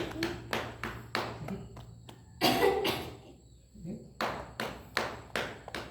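Rhythmic tapping, about three sharp strikes a second, broken about two and a half seconds in by a cough from the person being treated for a persistent cough.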